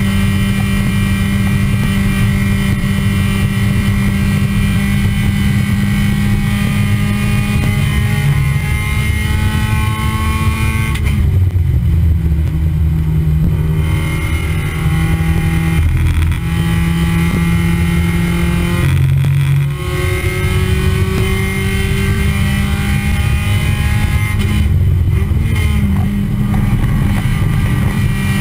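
Race car engine running hard on track, heard from the car itself, its pitch gliding steadily with speed. Three times it lifts off the throttle and the pitch steps down, then it pulls again, as with braking and downshifting into corners.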